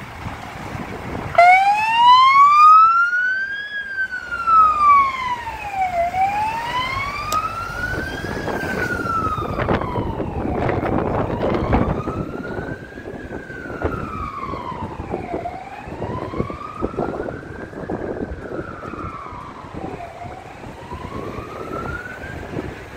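Fire engine's siren switching on about a second and a half in and wailing, its pitch slowly rising and falling every four to five seconds. Engine and road noise swell under it in the middle as the truck moves off.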